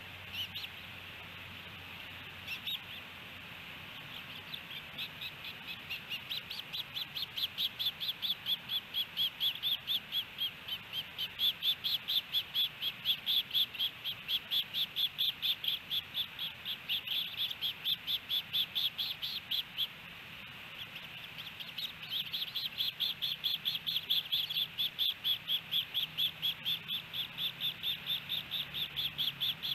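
Osprey calling at the nest: a long series of rapid, high, repeated chirps, about three a second, with a short break about two-thirds of the way through.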